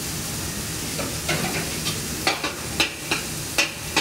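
Food cooking on a food-court griddle with a steady sizzle, and a string of sharp clacks of metal utensils against it from about a second in.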